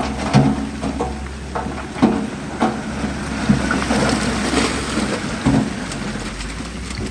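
A heavy diesel engine of an earthmoving machine runs steadily while stones and dirt clatter and crunch, with irregular knocks scattered through.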